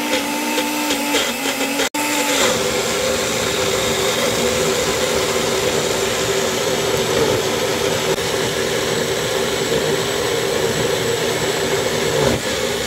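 Magic Bullet blender motor running continuously, blending chopped ginger and cooking oil into a paste. Its whine wavers in pitch for the first two seconds, cuts out for an instant, then settles into a steady run.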